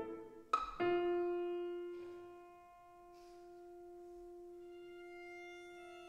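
Chamber ensemble of piano, violin, cello and clarinet playing a quiet passage of contemporary classical music. A few sharp struck chords sound in the first second, then one long note is held, fading and swelling again, and a second voice enters near the end.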